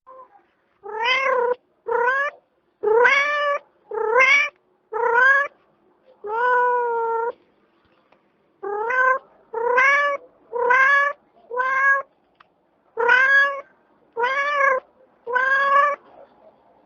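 A domestic cat meowing over and over, about one short meow a second, each call rising and then falling in pitch, with a brief pause about halfway through.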